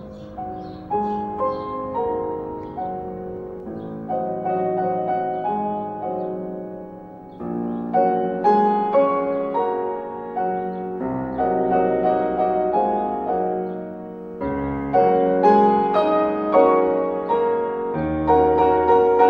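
Background piano music: a calm piece played as a steady flow of notes and chords.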